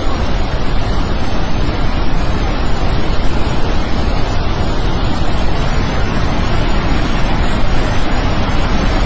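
Loud, steady rushing of a river in spate, with floodwater pouring through after a glacier burst.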